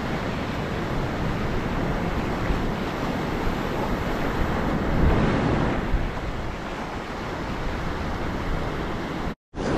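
Ocean surf washing onto a sandy beach, a steady rushing noise; the sound cuts out for a moment near the end.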